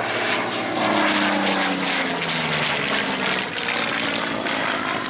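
Supermarine Spitfire Mk IX's Rolls-Royce Merlin V12 piston engine and propeller in a loud flyby, the engine note dropping in pitch as the plane passes.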